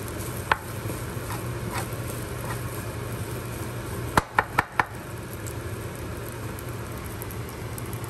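Wooden spoon stirring fried rice in a pan, with light clicks of the spoon against the pan and four quick sharp knocks a little past the middle, as of the spoon tapped on the pan. A steady low hum runs underneath.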